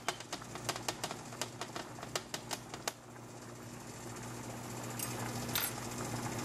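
A fork poking through baked salmon fillets, its tines clicking against the metal roasting pan in quick irregular taps that die away about three seconds in, with a few more taps later. A steady low hum runs underneath.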